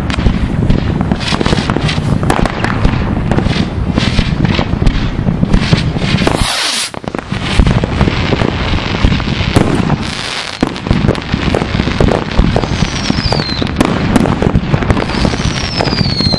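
Fireworks and firecrackers going off in a dense, continuous barrage of bangs and crackles. A rushing hiss rises out of it about six seconds in, and again around ten seconds. Two short falling whistles sound near the end.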